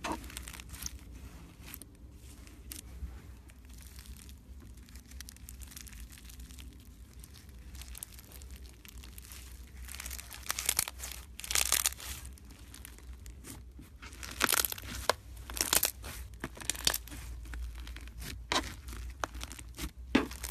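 White floam slime packed with small foam beads being squeezed and kneaded by hand, crackling and crunching. The crackles are faint at first and come in louder bursts from about halfway through.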